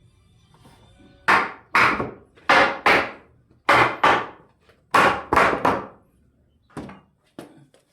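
Wooden door parts being struck hard to knock the joints together during assembly: about nine heavy blows, mostly in quick pairs, then a few lighter knocks near the end.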